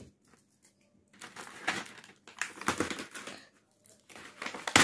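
A white plastic packaging tray and black toy train track pieces clicking and rattling as they are handled and pulled from the tray. The noise comes in three bursts, and the loudest clatter comes near the end.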